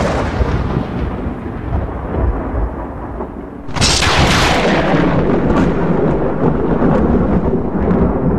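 Thunder sound effect: the rumble of one thunderclap dying away, then a second sudden crash about four seconds in that rolls on and slowly fades.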